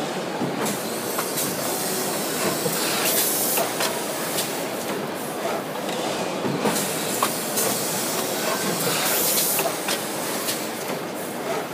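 Injection moulding machine and in-mould-labelling robot cycling: a steady mechanical din with scattered clicks. Two short bursts of compressed-air hiss come about three seconds in and again some six seconds later.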